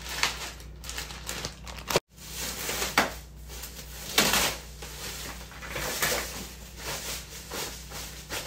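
Rustling and crinkling of packaging as a flat-screen TV is lifted out of its box and its white foam wrap sheet is pulled off, with a few sharp knocks of the set and carton. The sound cuts out completely for a moment about two seconds in.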